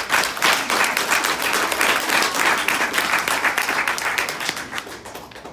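Audience applauding. The clapping starts right away and thins out near the end.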